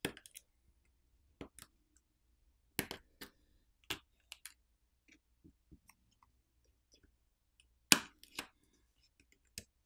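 Irregular sharp clicks of a plastic pry tool and fingertips on a smartphone's internals as coaxial cable ends and a flex cable connector are pried off the subboard and snap free.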